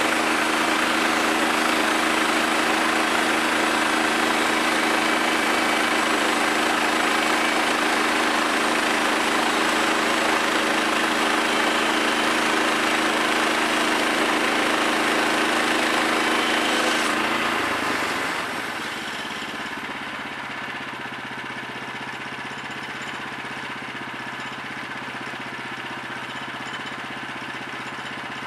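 Portable bandsaw sawmill's gas engine running at high throttle while the band blade saws through a Douglas fir log. About two-thirds of the way through, it is throttled down and settles into a quieter, steady idle.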